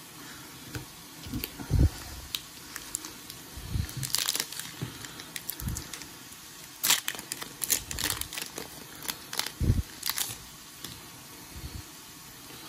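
Pokémon TCG booster pack wrapper being crinkled and torn open by hand, in irregular bursts of crackly rustling with a few soft bumps from handling.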